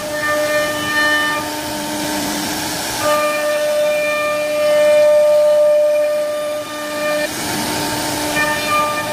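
CNC router spindle carving a relief pattern into a wooden board: a steady, high machine whine over the hiss of the bit cutting wood. The whine's upper tones thin out briefly about two seconds in and again around seven seconds, as the cut changes.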